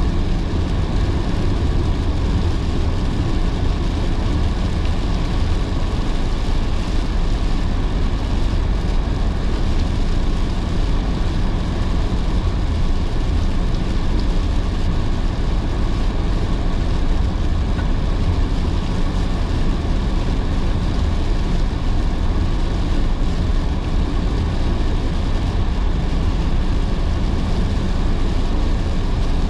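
Car driving on wet roads in heavy rain: a steady low rumble of road and tyre noise with the hiss of rain and spray.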